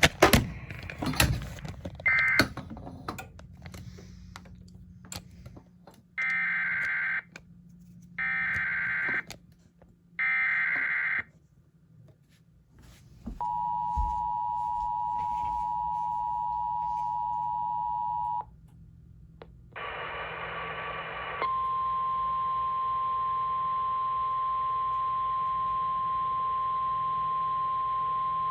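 Emergency Alert System tones: three one-second bursts of warbling SAME digital header data, then the two-tone EAS attention signal for about five seconds. After a brief burst of static, a single steady 1050 Hz weather radio warning alarm tone begins and holds. A few clicks and crackles come before the data bursts.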